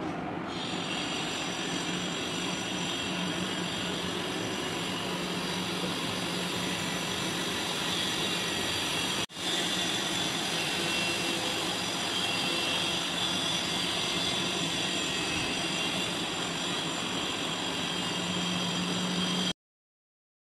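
Steady machine-like whirring noise with a low hum underneath. It cuts out for a moment about nine seconds in and stops shortly before the end.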